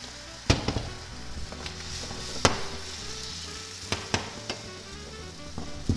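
Beaten egg mixture sizzling steadily as a thin layer sets in a hot, oiled frying pan. A handful of sharp knocks from the pan come through as it is lifted and tilted to spread the egg.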